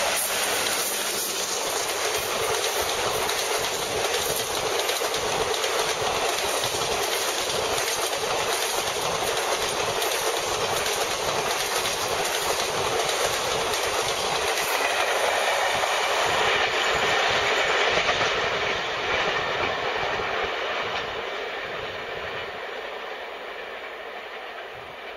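Express passenger train behind a WDM-3D diesel locomotive rushing past at speed, its coach wheels clattering over the rail joints in a fast, steady rhythm. The noise dies away over the last several seconds as the train recedes.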